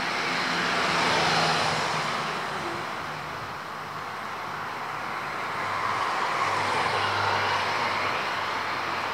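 Passing road traffic: two vehicles go by, the noise swelling and fading twice, the first loudest about a second in and the second around two-thirds of the way through with a low engine hum under it.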